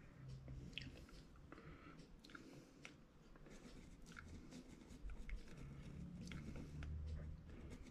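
Faint, scattered small clicks and ticks over a low hum.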